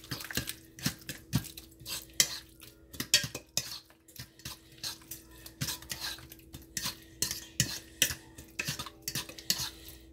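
Metal utensil stirring a thick ricotta, egg and chicken stuffing in a stainless steel mixing bowl, clinking and scraping against the bowl about twice a second.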